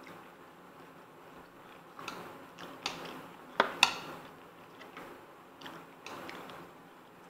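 Eating sounds at a table: sharp clicks and taps of a fork and food being picked at in an aluminium foil tray of lobster and noodles. The loudest pair of clicks comes a little past halfway.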